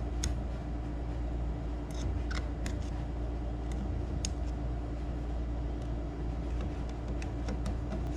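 Scattered light clicks and taps as small metal carburetor parts and a pick are handled on the bench, over a steady low hum.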